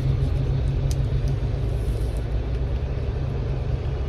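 Steady low background rumble, with a light click about a second in.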